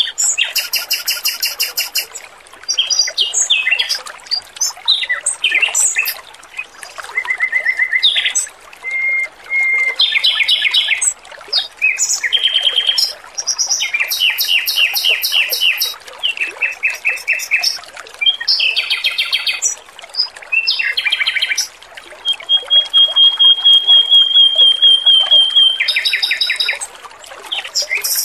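Male Pekin robin (red-billed leiothrix) singing without pause: fast trills and runs of repeated chirps, including a long string of quick even notes in the last third, over steady trickling water.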